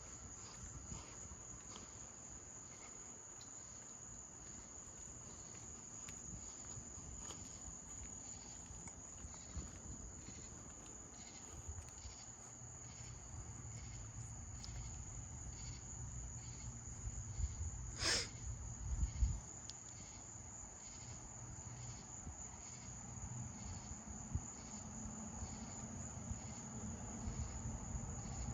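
Crickets chirping steadily in a high, unbroken trill. A low rumble swells in the middle stretch, and a single sharp click sounds about two-thirds of the way through.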